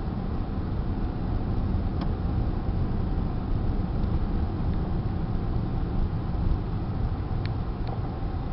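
Inside a moving car: a steady low rumble of engine and tyres on a paved road, with a couple of faint clicks near the end.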